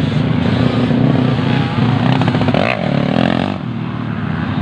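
Dirt bike engines running on a race track, with one revving up in a rising pitch about two to three seconds in.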